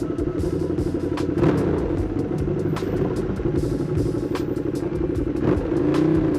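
Ducati Streetfighter V2's V-twin engine running through an Austin Racing exhaust, a steady note whose pitch shifts near the end, with scattered short clicks over it.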